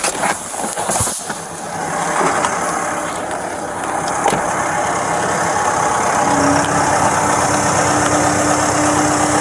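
Engine of a large construction machine running, growing louder over the first few seconds and then holding steady, with a steady hum coming in about six seconds in. A few knocks sound in the first second.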